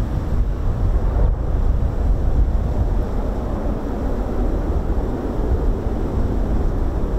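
Jet aircraft engines rumbling at an airfield, mixed with wind buffeting the microphone; the engine noise swells slightly partway through.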